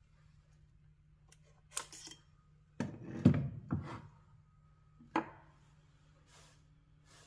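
Handling clicks and knocks as a clip-on camera cooling fan is pulled off the back of a camera and set down on a wooden table. The loudest cluster comes about three seconds in, with one more sharp click about five seconds in.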